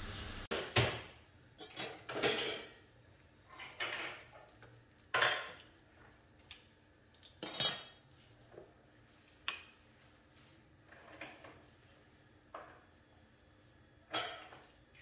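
Kitchen dishes and utensils clinking and knocking: a metal spoon against a glass mixing bowl, and small glass dishes being handled and set down. About a dozen separate knocks, irregularly spaced about a second apart.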